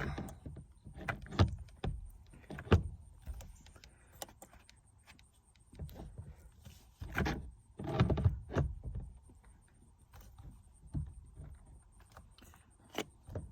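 Irregular knocks, clicks and rubbing as a steering wheel is worked onto its grooved column shaft, with a few louder thumps, two within the first three seconds and two more about seven and eight seconds in.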